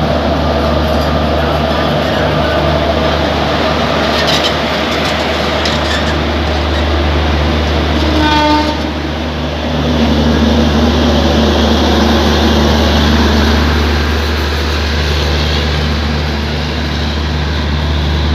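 Passenger coaches of an express train rolling past as it pulls out of the station, a steady low rumble throughout. A short horn blast sounds about eight seconds in, and the running diesel generator of the train's power car adds a louder hum as it passes, about ten seconds in.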